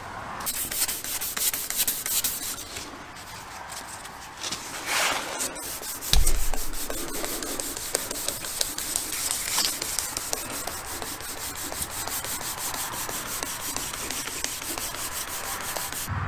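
Abrasive strip being pulled back and forth around a stacked-leather knife handle clamped in a vise, shoeshine-style sanding in quick, even strokes. A single knock about six seconds in.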